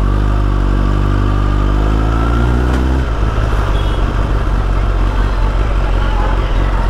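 Motorcycle engine pulling away, its note rising slightly. About three seconds in, the steady engine tone gives way to a rougher, noisier sound.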